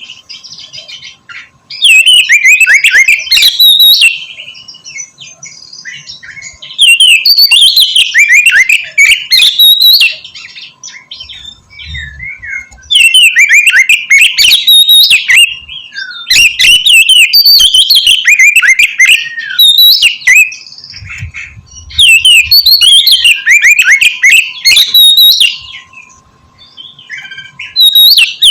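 Oriental magpie-robin (kacer) singing loudly in bursts of rapid, varied whistled phrases, each lasting about two to four seconds, with short pauses between them.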